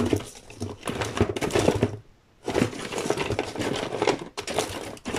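Rolls of washi tape clicking and clattering against each other as they are rummaged through, with some rustling, and a short pause about two seconds in.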